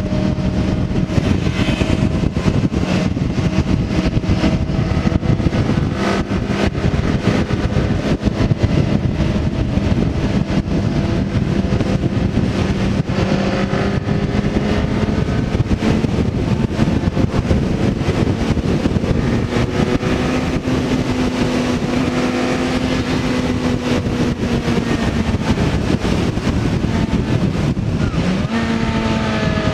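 Sport bike engine running at steady road speed under a heavy rush of wind noise. Its pitch drifts gently up and down with the throttle, and the revs step up near the end.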